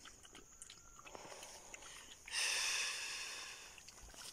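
Two puppies lapping water, a run of faint quick clicks about three or four a second. About two seconds in a loud hissing rush starts suddenly and fades out over a second and a half.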